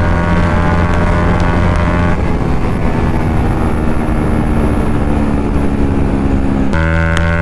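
Bajaj Pulsar NS200's single-cylinder engine running through an aftermarket Akrapovic exhaust at highway speed. The engine note drops about two seconds in, holds lower, then comes back strongly near the end, as with gear changes and throttle.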